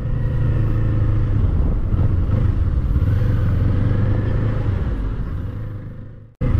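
Kawasaki Eliminator 450 SE's parallel-twin engine running steadily on the move, a low drone that fades away near the end and then cuts off abruptly.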